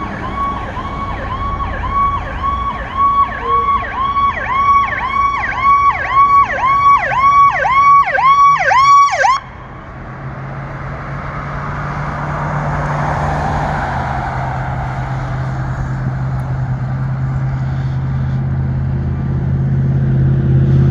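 An emergency vehicle's electronic siren repeats a fast cycle, about two a second: a steady high tone that dips sharply and comes back. It cuts off suddenly about nine seconds in. After it a vehicle engine runs with a low steady drone that slowly grows louder.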